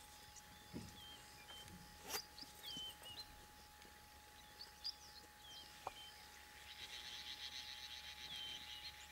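Faint natural ambience: short high chirps repeating about once a second, a few sharp clicks, and a fast rattling trill that starts about two seconds before the end, over a faint steady hum.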